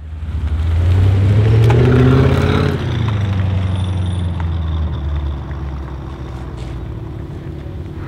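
Audi RS6 C7's twin-turbo 4.0 V8 through a Milltek exhaust, revving loudly with the pitch rising for the first few seconds, then settling to a lower, steadier running note that slowly fades.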